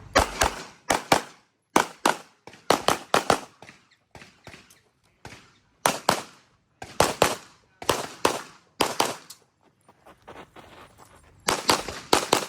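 Handgun being fired rapidly during an IPSC stage: sharp pistol shots, many in quick pairs, in strings broken by short pauses of a second or two.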